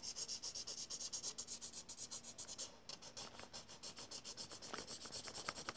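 Felt-tip marker scratching on paper in quick back-and-forth colouring strokes, about eight a second, with a short break partway through before the strokes go on more faintly.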